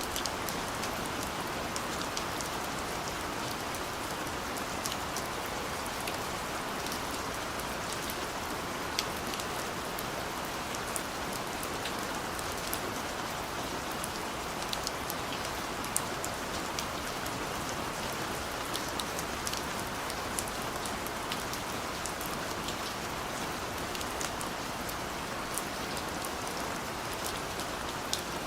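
Steady rain falling, an even hiss with scattered sharp drop ticks throughout.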